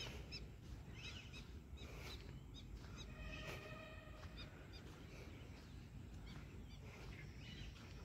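Faint birdsong: scattered short, high chirps from several birds, with one longer steady-pitched call near the middle, over a low background rumble.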